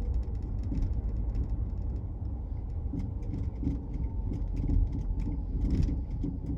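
Inside the cab of a 2019 Ford F-150 SuperCrew rolling slowly over uneven ground: a low rumble with many short thuds and squeaks as the truck rocks side to side. The owner suspects a suspension issue.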